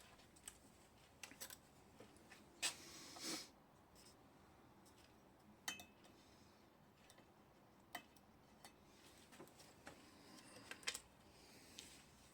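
Near silence broken by a few faint, scattered clicks and knocks of small hard objects being handled, with a brief scrape about three seconds in and a quick cluster of clicks near the end.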